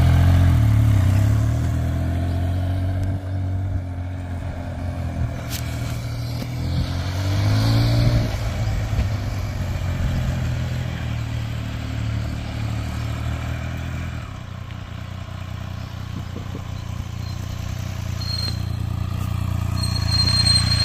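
Triumph Speed Triple's three-cylinder engine pulling away and riding off, revving up about eight seconds in, then running quieter in the distance and growing louder again as it comes back. A thin high squeal appears near the end.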